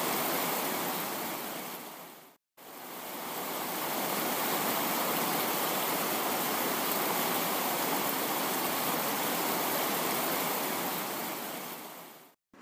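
Steady rushing noise of heavy rain. It fades out to silence a little over two seconds in, swells straight back, and fades out again near the end.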